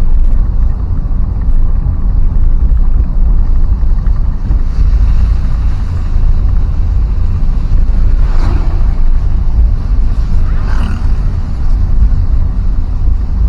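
Steady loud low rumble of road travel, with wind buffeting and vehicle noise while riding through traffic. Two brief rushing swishes come a little past the middle, like vehicles passing close by.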